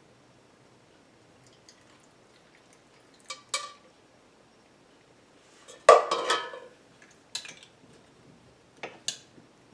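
Glass jars and kitchen utensils clinking and knocking: a few short sharp clinks, with the loudest, ringing cluster about six seconds in.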